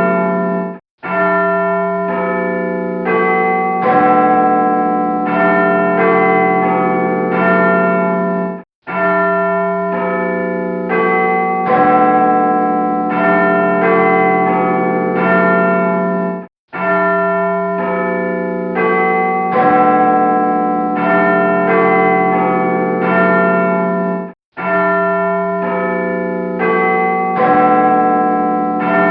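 Church bells ringing a short tune of several pitches, a strike about every second, each fading into the next. The same phrase of about eight seconds loops, breaking off for a moment of silence before each repeat.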